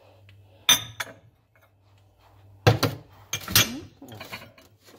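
Glass bowls and ceramic ramekins being handled and set down on a cabinet shelf: sharp clinks and knocks, two about a second in and a cluster near the middle.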